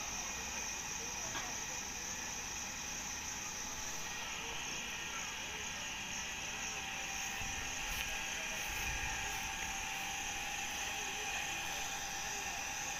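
Steady low rumble and hiss from an Indian Railways passenger train beside the platform, with a few faint clicks and a stronger rumble about eight seconds in. A high, steady insect drone sits over it.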